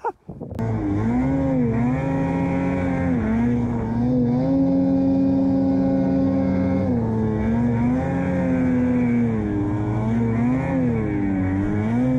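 Steady whine of a camera drone's propellers in flight. The pitch holds level for a few seconds at a time, then glides up or down as the drone changes speed.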